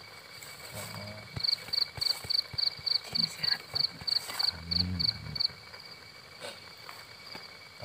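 Cricket chirping at night in a fast, even series of high-pitched chirps, about three or four a second. The chirping starts about a second and a half in and stops after about four seconds, over a faint steady insect drone.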